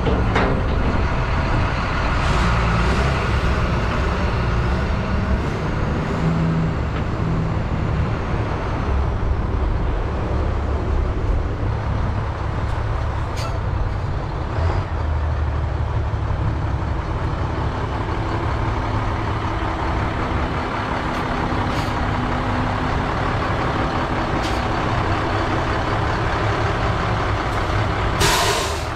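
Diesel engines of a wheel loader and salt-spreader plow trucks running steadily as the loader tips a partial bucket of road salt into a truck's spreader body. Near the end there is a short, sharp burst of hiss.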